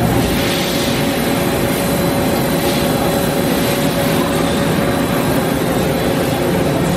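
Matsuura Cublex-42 five-axis CNC machining center running: a steady mechanical hum and hiss with a constant tone.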